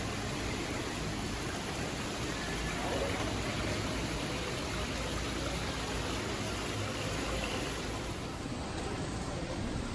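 Steady indoor ambience of a large retail store: an even wash of noise like running water, with faint voices in the background.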